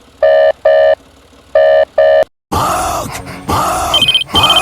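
Two quick double beeps of a steady electronic tone, then about halfway in a run of loud groaning cries that swell and fall, with high short beeps joining near the end: dubbed-in sound effects.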